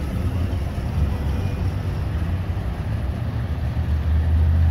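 1989 Jeep Comanche's inline-six idling: a steady low rumble, with wind noise on the microphone.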